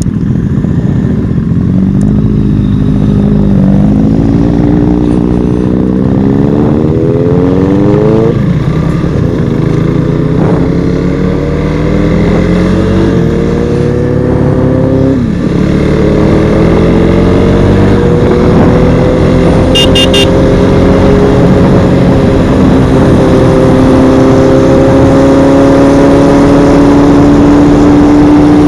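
Sport motorcycle engine pulling away and accelerating, its pitch climbing through the gears with sharp drops at upshifts about eight and fifteen seconds in, then settling into a steady cruise that slowly rises.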